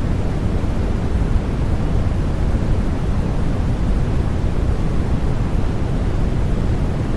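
Steady white-noise track for baby sleep: an even, deep hiss weighted toward the low end, closer to pink or brown noise, with no changes.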